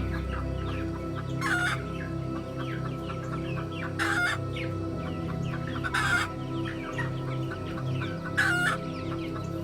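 Chickens clucking: four loud short calls roughly two seconds apart, over many faint quick chirps, with a steady music bed underneath.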